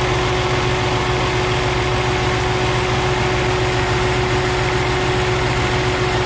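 Jaguar S-Type's 3.0 V6 idling steadily while misfiring, with an ignition coil pulled for a spark test, and a steady whine over it. The misfire comes from a cylinder that is not firing, which the mechanic traces to a bad ignition coil.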